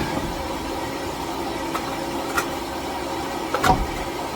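A steady mechanical hum in the background, with a few short metallic clicks as lug nuts are threaded onto the wheel studs by hand.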